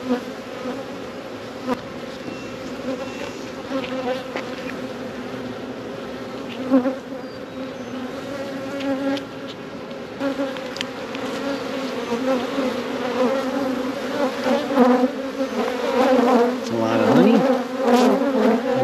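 Honey bees buzzing in a dense, steady drone over an opened hive: a colony stirred up by the inspection, the buzz growing louder toward the end. A few sharp knocks come from the metal hive tool working the wooden frames.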